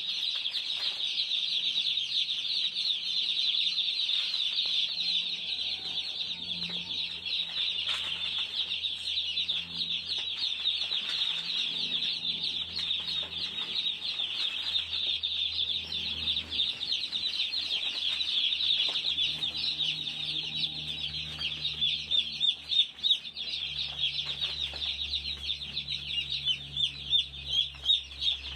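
A brooder full of day-old broiler chicks peeping nonstop, many short, high, falling cheeps overlapping into one dense chorus. These are chicks just moved from the hatchery, still stressed and tired from the move.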